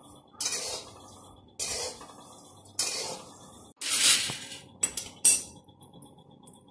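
A spatula stirring dry spices as they roast in a pan: six sharp scraping clinks, roughly one a second, each fading quickly.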